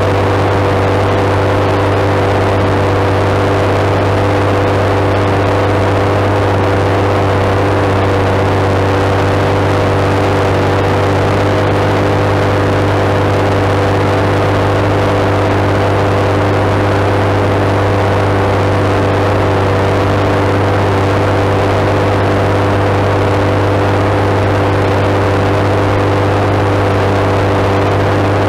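JCB Fastrac 7270's Cummins straight-six turbo diesel growling steadily under heavy load, pulling a six-furrow plough. The engine note holds constant throughout, with no change in revs.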